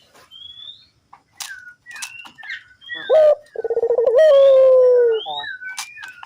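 Puter dove cooing. One loud coo starts about three seconds in: a short rising note, a quick rolling stretch, then a long held note that slides slightly lower. Small birds chirp in quick high sweeps throughout.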